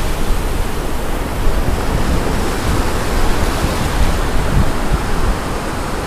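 Wind blowing across the camera microphone over the steady wash of ocean surf, a constant noisy rush strongest in the low end.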